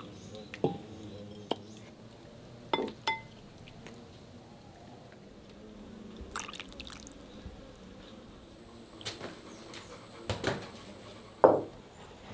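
Ladle scooping chicken curry from a clay pot, with gravy pouring and scattered clinks and knocks of the ladle against pot and bowl, two ringing clinks about three seconds in. A louder knock comes near the end.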